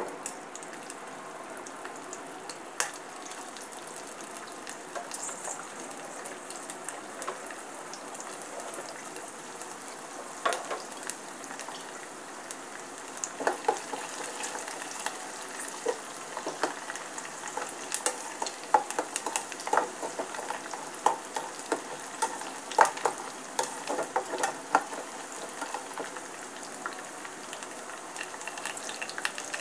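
Sliced dry fruits frying in hot ghee in a small steel saucepan: a steady sizzle, with a spatula scraping and tapping against the pan, more often in the second half. The nuts are being fried until crisp and lightly golden.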